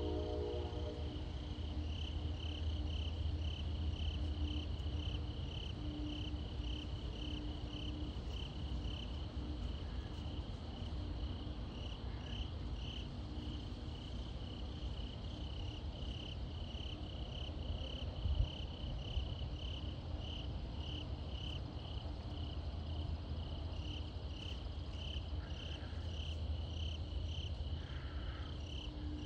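Night insects chirping in a steady, even rhythm, about two to three chirps a second, over a low rumble of wind.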